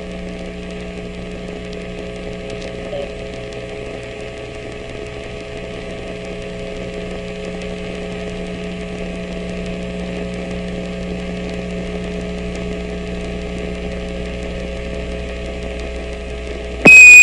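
Steady hiss and hum of the Apollo 15 air-to-ground radio link in a gap between transmissions. Shortly before the end, a loud, short Quindar beep keys the next transmission.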